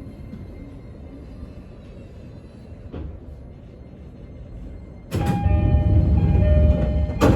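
Commuter train's sliding passenger doors operating: a sudden loud rush of noise with a steady two-note tone over it for about two seconds, ending in a sharp thud as the doors meet.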